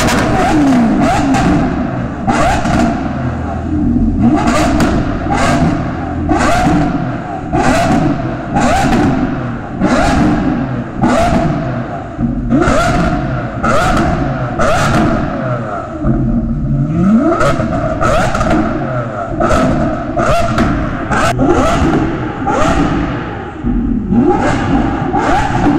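Kawasaki Ninja H2R's supercharged inline-four revved hard in quick, sharp throttle blips, about one a second.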